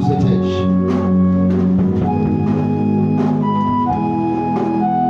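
Instrumental worship music: sustained chords held and changing every second or two, with light percussion underneath.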